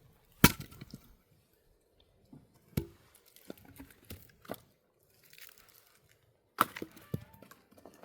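Axe blows splitting firewood: three sharp strikes, the loudest about half a second in, one near three seconds and one near the end, with the wood cracking and smaller knocks in between.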